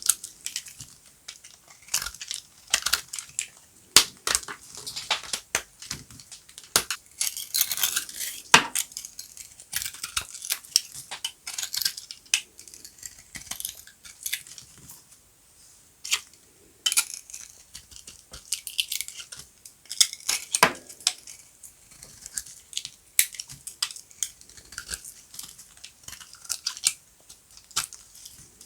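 Dry soap being cut: an irregular string of crisp cracks and crumbling crunches, with a few louder sharp snaps.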